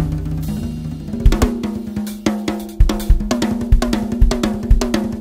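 Drum kit being played: high-tuned toms (8, 10, 12, 14 and 16 inch) ringing with clear, singing pitches, almost like a marimba, mixed with snare, bass drum and cymbal hits. A low drum's ring fades over the first second, then a quick run of strikes follows.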